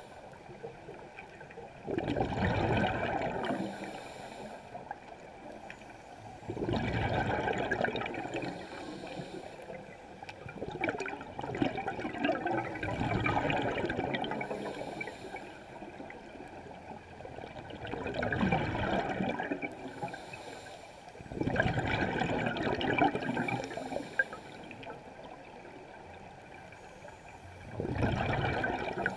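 Scuba diver's exhaled bubbles rushing out of the regulator in bursts about every four to six seconds, heard underwater.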